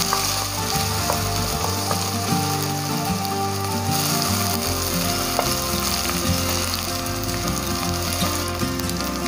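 Blended chili curry paste sizzling steadily as it fries in hot oil in a pot with curry leaves and whole spices.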